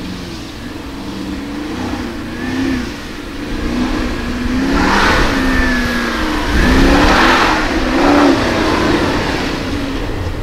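2004 Porsche Cayenne Turbo's twin-turbo V8 revving up and down as the SUV slides through a dirt slalom, with the tyres spraying dirt and sand loudest about halfway through.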